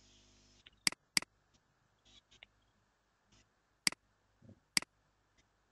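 Computer mouse buttons clicking: two sharp clicks close together about a second in, then single clicks near four and five seconds, with a few fainter ticks between.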